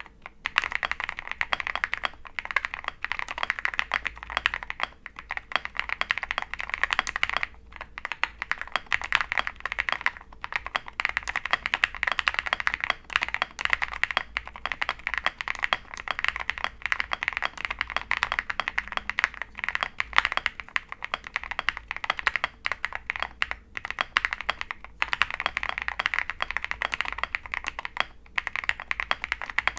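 Fast continuous typing on a mechanical keyboard with lubed linear Konpeitou switches, a polycarbonate plate, full foam and MT3 PBT keycaps: a dense run of keystrokes, with a few short pauses.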